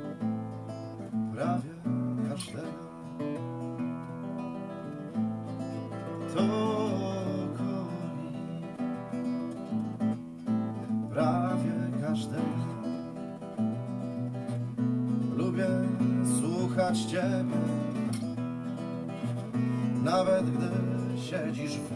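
Acoustic guitar played steadily, sustained chords with plucked notes over them.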